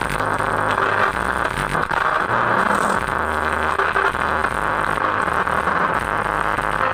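A damaged loudspeaker driven hard by a high-power amplifier, giving out a loud, harsh, noisy sound with irregular low bass pulses. It is the sound of the speaker being overdriven to burn it out, its voice coil already scorched.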